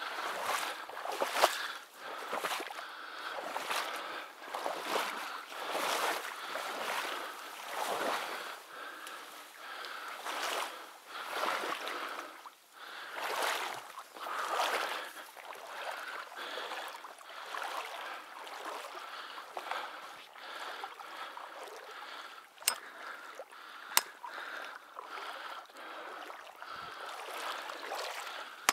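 Rhythmic swishing of someone on the move, a swell roughly every one and a half to two seconds that evens out into a steadier hiss later on. Two sharp clicks about a second apart come near the end.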